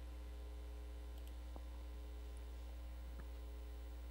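Steady low electrical mains hum with a few faint clicks.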